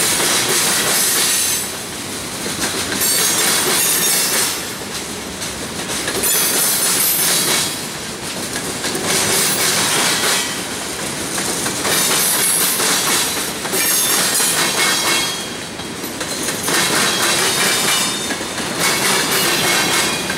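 Freight cars of a CSX train rolling past, steel wheels on rail with some high-pitched wheel squeal, swelling and fading about every three seconds as each car goes by.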